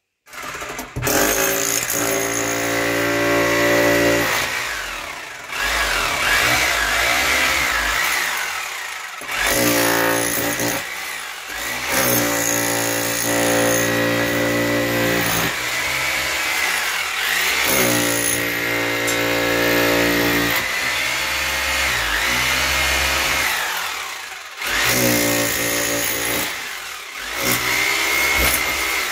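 Handheld power tool cutting into a concrete block wall, run in bursts of a few seconds with short pauses. Its pitch sags and recovers as it bites into the block.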